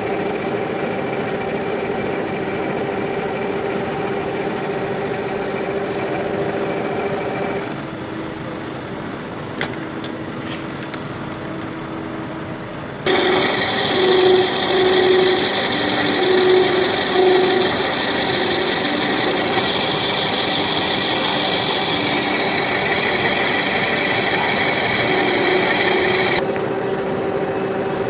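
Lathe running with a steady motor and gear hum. About thirteen seconds in, the cutting tool bites into the spacer washer and a harsher, higher cutting noise joins, swelling louder a few times, then stops shortly before the end.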